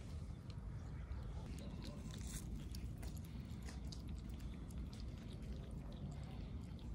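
Cats chewing and biting into cooked chicken and fish, with many small irregular clicks from their mouths working at the meat.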